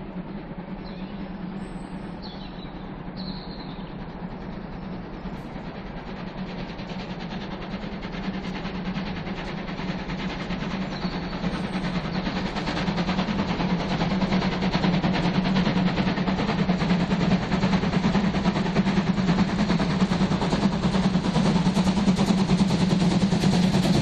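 German class 01 express steam locomotive approaching while working hard, its rapid exhaust beats growing steadily louder.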